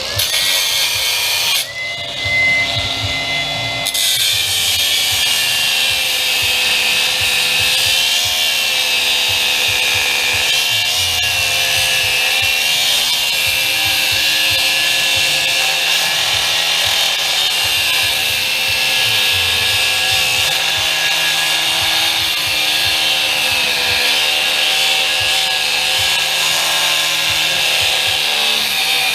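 Cordless cutoff wheel spinning up, then cutting through the aluminum housing of a windshield wiper motor assembly. After a brief steady whine it runs on with a whine that wavers in pitch as the wheel loads and unloads in the metal.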